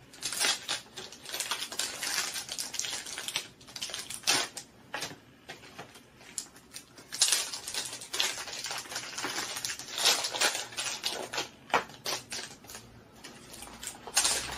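Small blind-box packaging being opened by hand: crinkling, rustling and tearing, with many irregular light clicks and taps.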